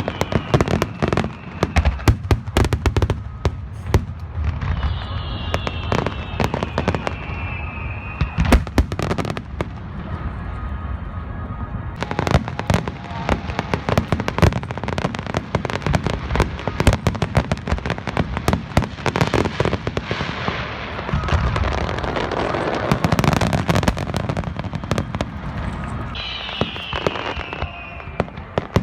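Fireworks display: a continuous barrage of bursts and crackling, densest in the middle, with falling whistles about five seconds in and again near the end.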